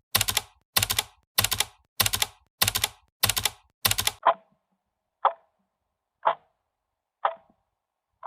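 Clicking, like fast keyboard typing, in short bursts about every 0.6 s. About four seconds in it gives way to single clock-like ticks, about one a second.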